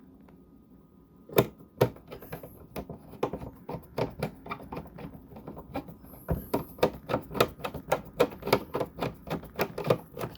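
Clicking and ticking from a Phillips screwdriver snugging the screws that hold the high-mount brake light cover. It starts about a second and a half in and quickens to a steady run of about three or four clicks a second in the second half.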